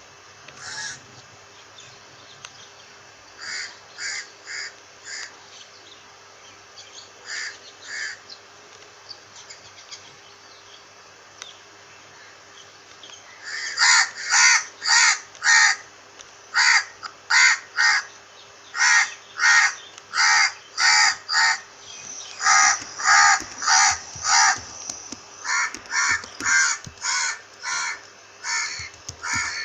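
Crows cawing: a few scattered caws in the first half, then about halfway through a loud, rapid run of harsh caws, roughly two a second.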